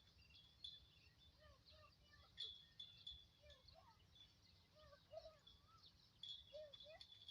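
Faint birdsong: many short chirps and warbling calls over a low background rumble.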